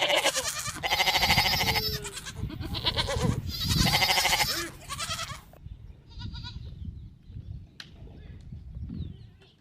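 Sheep bleating: three or four long, wavering bleats close together in the first five seconds, then only faint low background noise.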